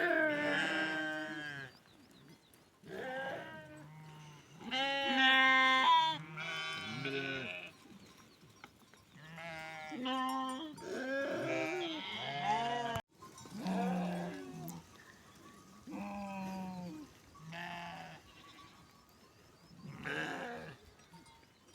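A flock of sheep bleating: many calls one after another, some deep and some higher-pitched, at times overlapping.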